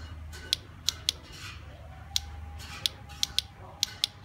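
Sharp plastic clicks, about ten at irregular intervals, as a motorcycle LCD dashboard gauge is handled and its buttons pressed. A low steady hum runs underneath.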